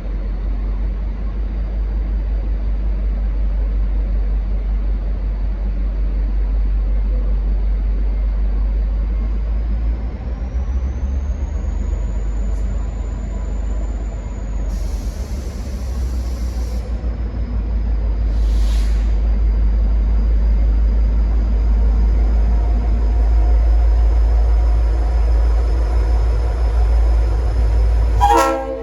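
Diesel-electric locomotive (V/Line N class) running under power as it pulls away, a steady deep rumble with a thin high whine that rises and then eases. A brief hiss comes about halfway through, and a short loud blip right at the end.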